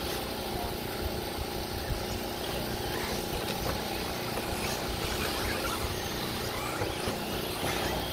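1/8-scale electric off-road RC buggies running on the track, their motors whining up and down in pitch a few times over a steady outdoor noise bed with a low rumble.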